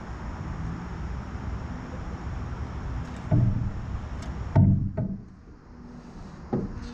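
A few knocks on an aluminum canoe's hull, about a second or two apart, each followed by a brief ring of the hull. Under them is a steady wind hiss on the microphone that fades out about five seconds in.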